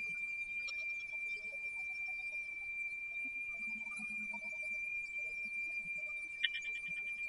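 A steady high-pitched tone held at one pitch, over faint background hiss, with a brief click about six and a half seconds in.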